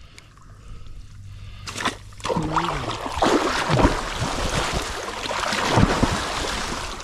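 Heavy splashing and churning of muddy canal water as a person wades and lunges chest-deep through it, surging close to the microphone. It is quieter at first and grows loud about two seconds in.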